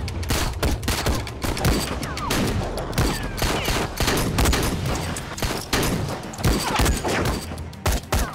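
Gunfight: many pistol shots from several guns, fired in quick succession with only brief gaps.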